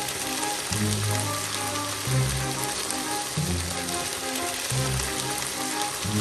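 Ground meat, peppers and tomato sauce sizzling in a frying pan with a steady hiss, under background music with a slow bass line that changes note every second or so.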